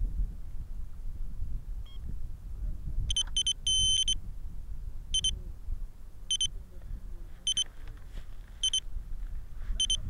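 High-pitched electronic beeping from an RC model's beeper: two quick beeps and a longer one about three seconds in, then single short beeps about every 1.2 seconds. A low wind rumble on the microphone runs underneath.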